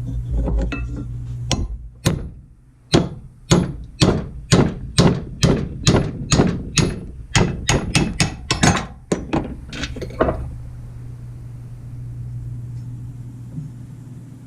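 A hammer striking metal on an arbor press about two dozen times in a steady run, roughly three blows a second and quickening near the end, each blow ringing briefly. A steady low hum runs underneath and carries on after the blows stop.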